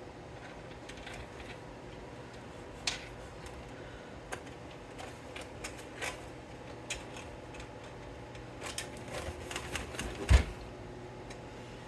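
Irregular clicks and light taps of PC parts and cables being handled and fitted into a computer case, with a louder knock about ten seconds in. A faint steady hum runs underneath.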